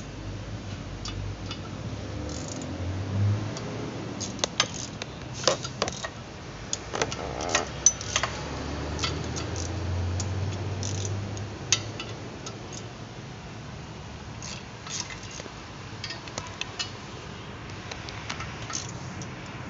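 Metal clicks and clinks of a ratchet wrench and hand tools on the clutch pressure-plate bolts, irregular and densest a few seconds in, over a low hum that swells twice.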